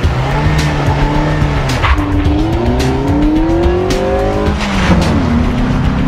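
Car engine accelerating: its pitch climbs for a few seconds, falls back late on, then holds steady.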